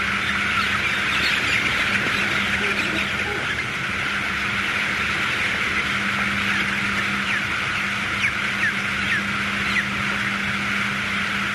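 A packed flock of thousands of young broiler chickens peeping together in a dense, steady chatter, with several louder single peeps standing out in the second half. A steady low hum runs underneath.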